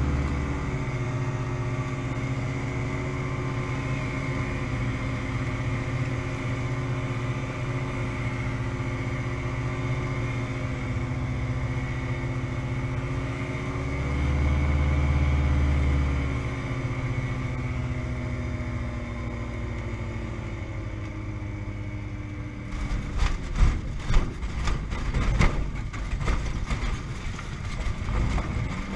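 Challenger ultralight's engine running at reduced power on the landing approach, rising briefly about halfway through and sinking a little as it is throttled back. A few seconds before the end, the wheels touch down and an irregular series of knocks and rattles follows as the aircraft rolls over rough, snowy ground.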